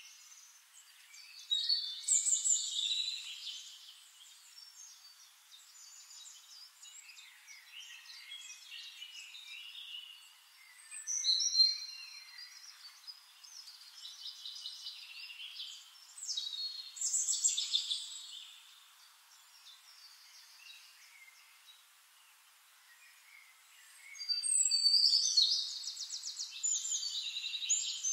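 Birds chirping and trilling in repeated bursts of high calls and quick falling sweeps, with quieter stretches between. The busiest, fastest trilling comes near the end.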